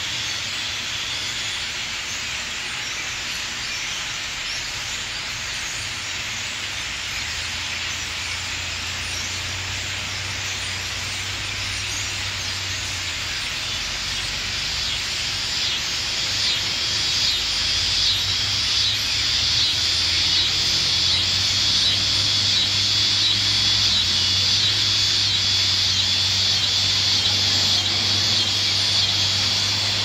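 Chorus of cicadas, a steady high-pitched buzzing hiss that grows louder about halfway through and takes on an even pulsing rhythm of about two pulses a second. A low steady hum lies underneath.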